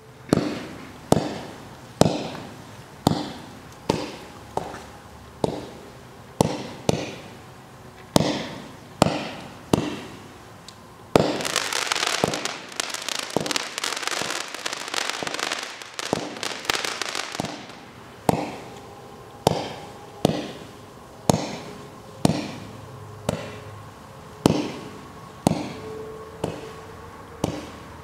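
Fireworks Fiesta multi-shot consumer firework firing shot after shot, sharp bangs at about one a second, with about six seconds of dense crackling in the middle.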